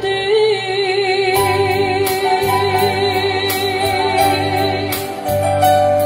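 A female singer holds one long note with vibrato, accompanied live by an electronic keyboard playing sustained chords and bass with a light, regular percussion beat.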